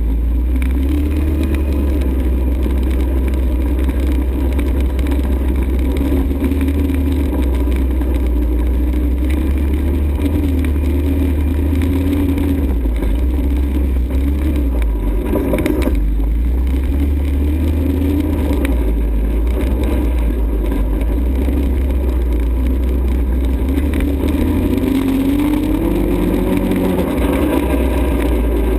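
ATV engine running under way, its pitch wavering up and down with the throttle and climbing near the end, over a heavy steady low rumble.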